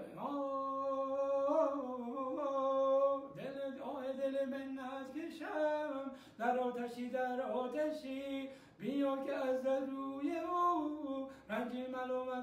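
A man singing an old Persian tasnif unaccompanied, with long held notes bent by ornaments. He sings in phrases of two to three seconds, each starting with an upward slide into the note.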